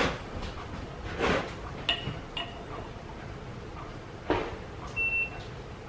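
Steel hand tools and calipers clinking and knocking against the lathe's cast-iron parts as they are handled and set down: a few sharp knocks, some followed by brief metallic rings, over a low steady background rumble.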